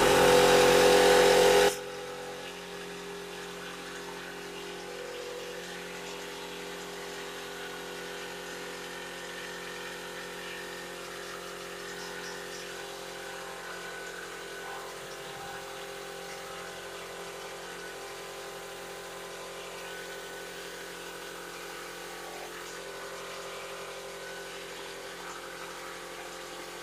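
Small air compressor running steadily to feed an airbrush, with the hiss of air from the spray gun; much louder for the first two seconds, then an even hum.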